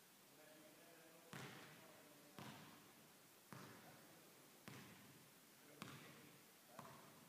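Basketball bounced on a hardwood gym floor: six slow, single bounces about a second apart, each echoing in the hall.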